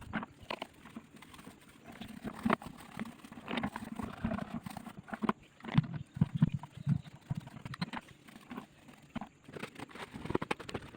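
Irregular knocks, clicks and clatter of a vacuum cleaner's parts being handled and tapped while it is cleaned out, with its motor off.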